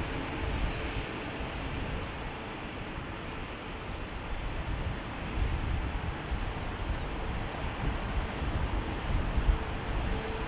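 Jet engines of a taxiing Breeze Airways Airbus A220 at idle thrust: a steady rush over an uneven low rumble.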